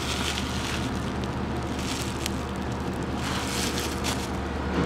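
Bubble wrap crinkling and rustling as it is handled, louder for a moment about three seconds in, over a steady low hum.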